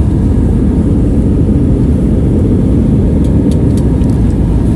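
Loud, steady low rumble inside an Airbus A320neo cabin during takeoff, from the engines at takeoff power and the aircraft's motion. A few light cabin rattles come in around three seconds in.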